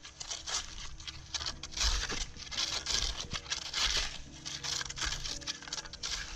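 Irregular scraping and crackling strokes of a hand tool working wet, muddy dirt.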